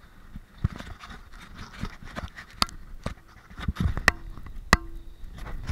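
Mountain bike rattling and clattering over a rocky downhill trail, with irregular sharp knocks from the frame and components, a couple of them ringing briefly like struck metal.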